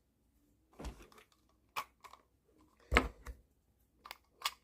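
Short plastic clicks and knocks, about six of them with the loudest about three seconds in, as the ball mouse's retaining ring is pressed into place over the ball and twisted to lock.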